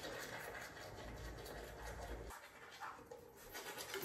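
Faint scrubbing of a toothbrush on teeth.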